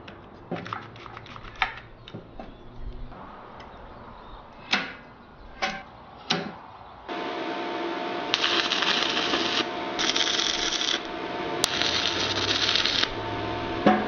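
Metal clinks and clamp clicks as steel tubing is set in a welding jig. About halfway a steady hum starts, and over it come three sizzling welding arcs, each about a second long, tacking the tubes.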